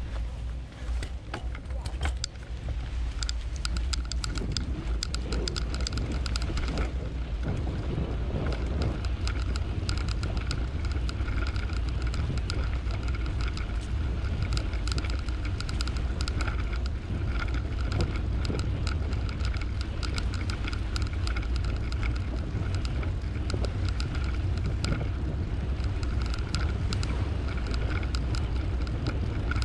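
Bicycle being ridden, heard from the rider: a steady low rumble of wind on the microphone and tyres on the path, with a steady whirring hum that sets in about three seconds in and many small clicks and rattles from the bike.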